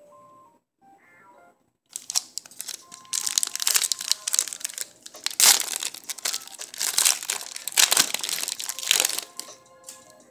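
Plastic wrapper of a football trading-card pack crinkling loudly as it is handled and ripped open, starting about two seconds in and dying away near the end.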